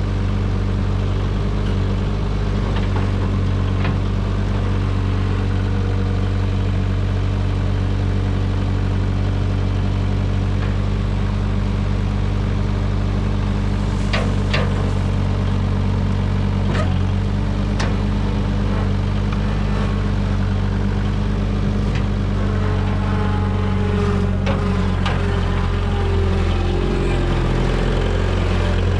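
Gehl 4610 skid steer's engine running steadily, with a few sharp metallic clanks and a slightly higher wavering whine near the end.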